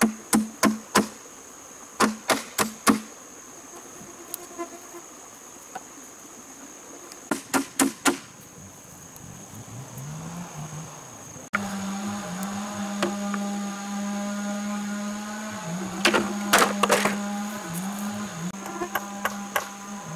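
Blows of a hand tool on a bamboo post, in quick runs of four or five knocks, over a steady high insect buzz. About halfway through, a steady low drone with small dips in pitch takes over, with a few more knocks over it.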